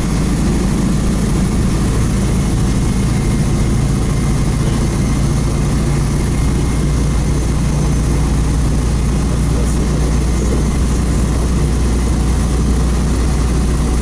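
PAZ-32054 bus moving along the road, heard from inside the cabin: its V8 petrol engine running with a steady low hum under continuous road and tyre noise.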